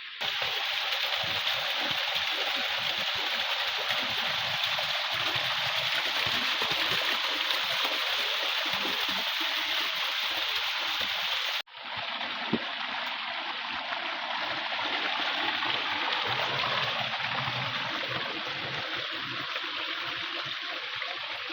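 Fast-flowing river water rushing steadily, with a brief break about halfway through, after which the rush resumes at once.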